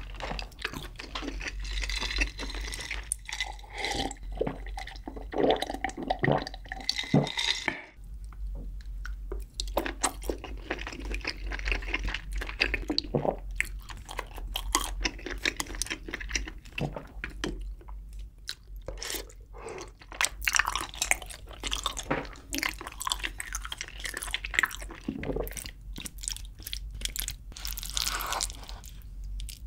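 Close-miked eating sounds: chewing saucy braised chicken and rice, with many small clicks and wet sounds, and chopsticks and a spoon scraping and tapping in a wooden bowl.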